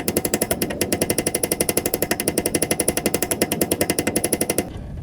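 Rapid, even power-tool hammering, about fifteen blows a second, driving a 302 V8's harmonic balancer back onto the crankshaft nose; it stops abruptly near the end.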